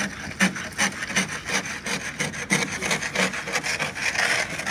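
Footsteps crunching in snow, an even walking rhythm of about two to three steps a second.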